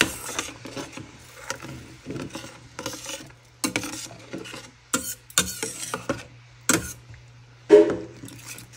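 A utensil stirring and scraping curry gravy in a kadai, with irregular clinks and knocks against the pan.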